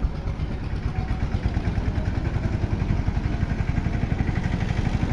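A vehicle engine idling close to the microphone, a steady low throbbing.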